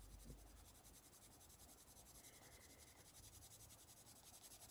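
Faint scratching of an oil-based coloured pencil shading a test swatch on paper.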